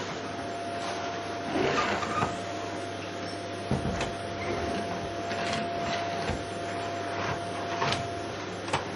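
Vacuum cleaner running steadily on a wooden floor, a constant whine over its rushing noise, with the cleaner head knocking against the boards now and then.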